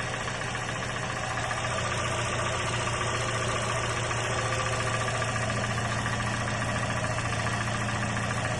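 Idling 2.5-litre four-cylinder engine of a 2019 Toyota Camry XV70, cold, running steadily with an extraneous noise on top of the idle that alarmed a would-be buyer.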